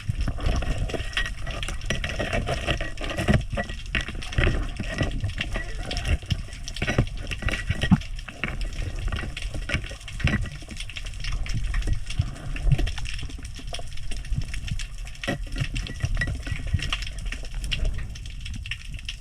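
Underwater sound on a spearfishing dive: a continuous crackle of many small clicks over a low rumble of moving water.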